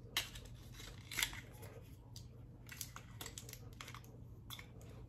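A lipstick tube and its packaging handled by hand, giving a few faint scattered clicks and rustles of plastic, the sharpest near the start and about a second in.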